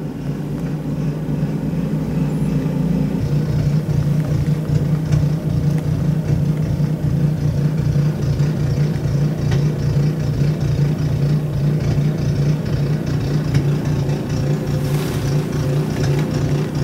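Ariens Deluxe snow blower's single-cylinder engine running steadily: a low hum with a fast, even pulse.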